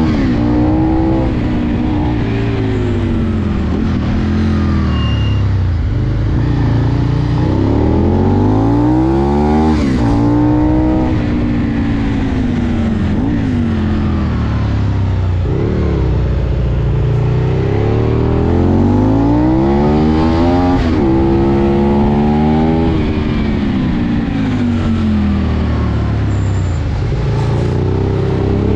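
Aprilia Tuono V2 motorcycle engine heard on board at riding speed, its revs climbing and dropping again and again as it accelerates out of bends and slows into the next, over steady wind rush.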